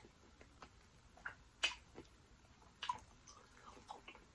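A cooked lobster tail being pulled apart by hand: a handful of faint, scattered clicks and crackles from the shell.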